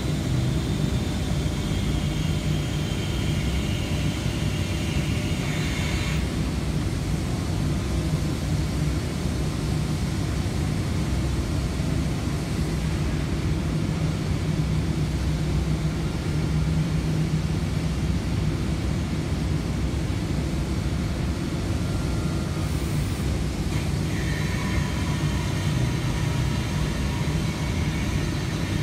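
Electric forklift with a bale clamp running, a high electric-motor whine over a steady low rumble. The whine stops about six seconds in and comes back a few seconds before the end.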